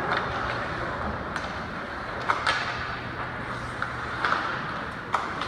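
Ice rink noise during a youth hockey game: a steady wash of arena sound and a low hum, with several short sharp clacks of sticks and puck spread through it.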